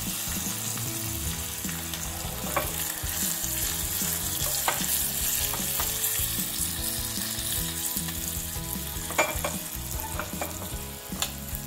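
Tadka sizzling in hot ghee in a small pan: green and dried red chillies, curry leaves and mustard seeds frying with a steady hiss, broken by a few sharp pops as the mustard seeds crackle.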